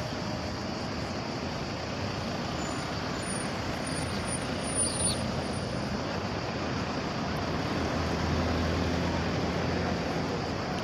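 Steady rumbling noise of a boat under way on the water, its motor running, with a low hum growing stronger near the end.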